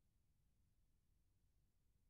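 Near silence: only a very faint, even low noise floor.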